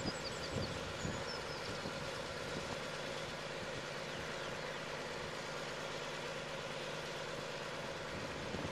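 An engine idling steadily at an even speed, with a few faint high chirps in the first second or so.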